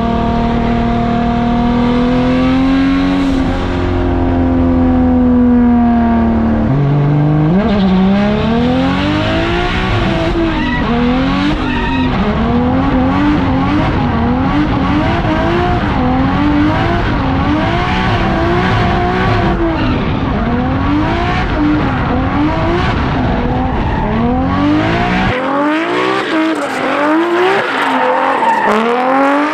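Drift car's engine and tyres on track: a steady engine note for the first seven seconds or so, then the revs rise and fall over and over as the car drifts, with tyre squeal.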